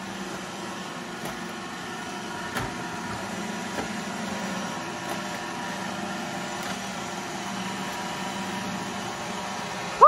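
iRobot Roomba i7 robot vacuum running: the steady whir of its vacuum motor and brushes as it manoeuvres under a low table, with a few light knocks, about two and a half and four seconds in.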